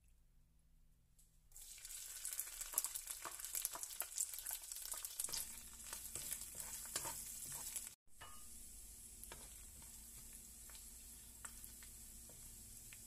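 Chopped dried shrimp frying in hot garlic oil in a non-stick wok. A sudden sizzle starts about a second and a half in as they hit the oil, crackling and spitting while a wooden spatula stirs them, then settles into a steadier, quieter sizzle.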